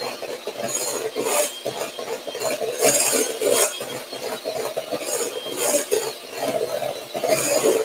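Electric hand mixer whipping cream cheese, double cream and icing sugar in a glass bowl until it thickens: a steady motor hum, with the beaters rattling and scraping against the bowl in repeated surges.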